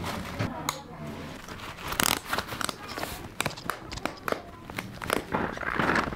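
Chain crampon straps being fastened over a hiking boot: nylon webbing pulled through plastic buckles, with a run of irregular sharp clicks and scrapes and some rustling.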